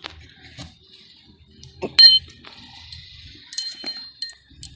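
Metal hand tools clinking against each other and on metal: one sharp, ringing clink about two seconds in, then several lighter ringing clinks near the end.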